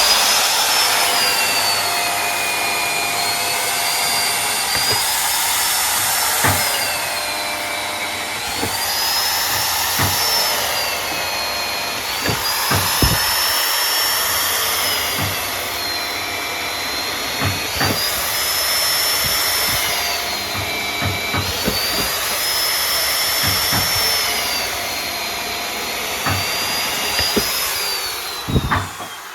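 Handheld electric power tool running at high speed and working wood, its whine dipping under load and recovering about every four to five seconds, with scattered knocks; it winds down near the end.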